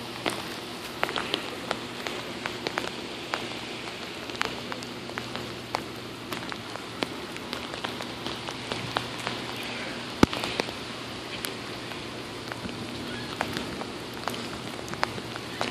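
Heavy rain falling, a steady hiss broken by frequent sharp taps of drops striking close to the microphone.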